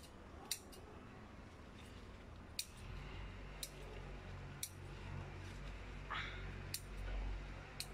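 Tender shoot tips being picked off chili and vegetable plants: several sharp clicks, about one a second, as the stems break off.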